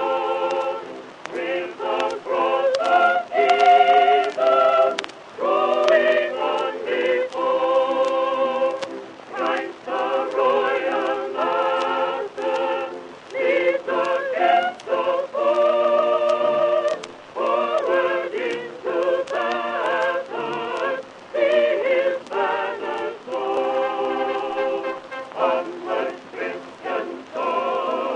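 Background music: several voices singing held, wavering notes in changing chords, thin-sounding with no low bass, with faint clicks throughout.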